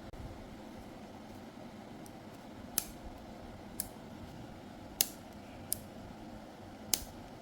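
Five sharp clicks spaced about a second apart, from handling a hair trimmer and its blade, over steady background noise.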